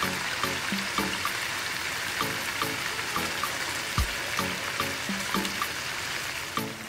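Yellowfin tuna steaks sizzling steadily in hot oil in a frying pan. Background music with a regular beat and a deep, falling bass drum runs over it.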